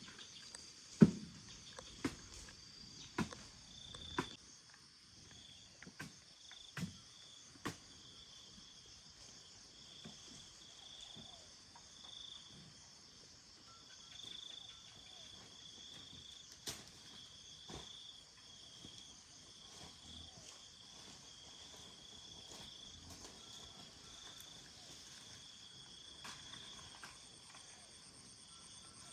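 Insects chirring in a steady, softly pulsing high chorus. A series of sharp knocks, roughly one a second, falls over the first eight seconds, the loudest about a second in, with one more knock later.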